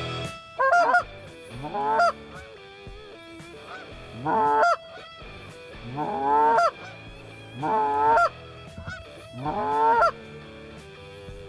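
Goose honks: six loud single honks, one about every one and a half to two seconds, each rising and falling in pitch.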